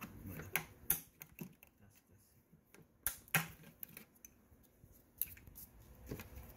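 Scattered light clicks and taps of a screwdriver working a plastic retainer clip loose, with the sharpest clicks about a second in and a little over three seconds in.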